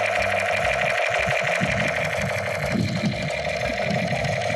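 Battery-operated toy machine gun firing its electronic sound effects: a loud, steady buzzing tone over a rapid mechanical rattle, the pattern changing about three seconds in. The toy is still working.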